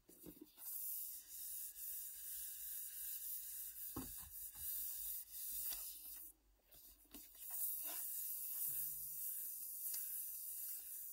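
Hands rubbing and sliding over the smooth lid of an iPad Pro box, a steady hiss of skin on the surface. A soft knock comes about four seconds in, and the rubbing breaks off briefly a little after six seconds.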